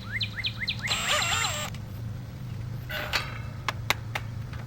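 A bird repeating a quick rising chirp, about four a second, which stops about a second in; then a short burst of sound, and in the second half a few sharp clicks.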